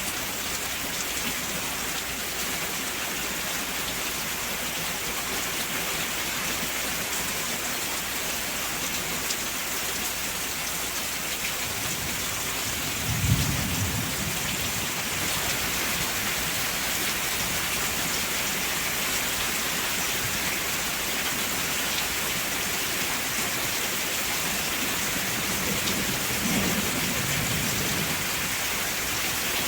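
Steady heavy rain hissing on surfaces, with a rumble of thunder about halfway through that peaks in a sharp crack, and a softer rumble near the end.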